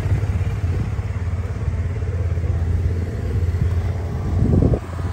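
A vehicle engine running at a steady idle with an even low pulse. About four and a half seconds in it briefly gets louder, then drops off suddenly.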